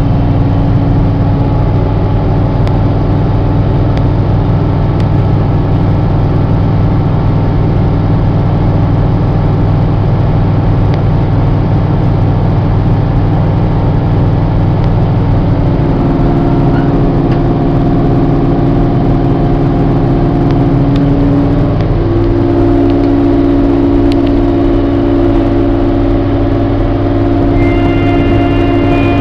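New Holland TR70 combine running steadily while harvesting corn, a loud even drone of engine and threshing machinery. Its tones shift in pitch about halfway through and again a few seconds later, and a higher whine comes in near the end.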